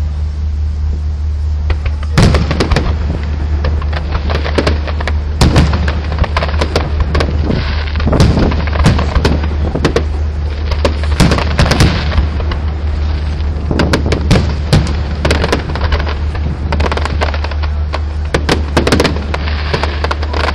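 Aerial fireworks going off in a dense, irregular string of booms and crackling bursts from about two seconds in, over a steady low rumble.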